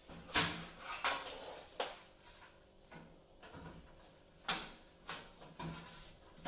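Thin sheet-metal back panel of a cooker being slid and knocked into place against the steel casing, a series of about eight short scrapes and clanks.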